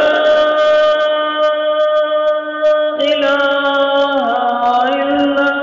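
A voice chanting long, steadily held notes, the pitch shifting about three seconds in and again about a second later.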